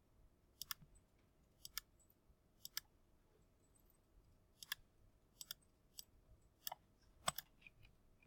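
Computer mouse button clicks: about a dozen sharp, short clicks, several in quick pairs like double-clicks, over near silence.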